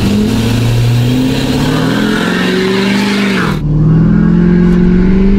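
Lifted Ford F-350 pickup launching hard in four-wheel drive on duct-tape-wrapped tires, the engine climbing in pitch under a loud rushing noise, with the tires hooking up and gripping. About three and a half seconds in, the sound cuts to inside the cab, where the engine keeps pulling at a steady high note.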